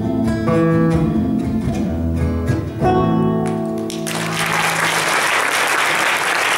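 Nylon-string classical guitar playing the closing chords of a song, several strummed chords ringing out. About four seconds in, audience applause breaks out and carries on.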